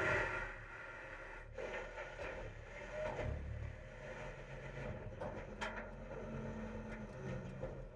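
Garbage truck engine idling with a steady low hum, while recyclables drop into the truck's Curotto Can with scattered knocks and clatter and a low thud about three seconds in.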